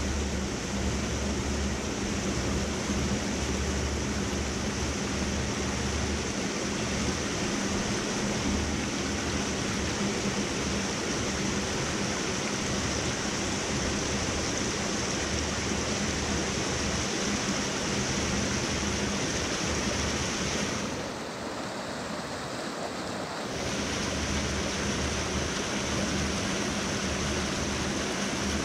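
A mountain stream rushing and splashing over rocks and small cascades, a steady noise that dips briefly about three-quarters of the way through.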